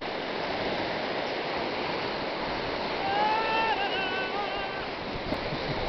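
Steady rush of water washing on a pebble shore. About three seconds in, a high, drawn-out voice is held and then wavers in pitch for under two seconds.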